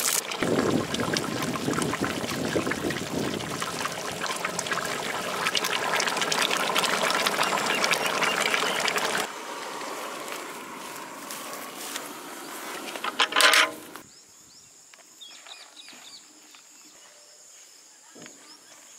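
Goat head curry boiling hard in a large aluminium pot: a loud, dense bubbling and crackling that drops away about nine seconds in. A short loud sound comes about 13 seconds in, then quiet open-air ambience.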